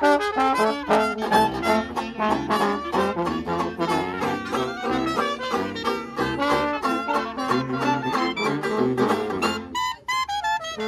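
Small 1920s New Orleans-style jazz band playing an upbeat number, with trombone and trumpet leading over banjo, clarinet and saxophone. There is a short break in the playing near the end.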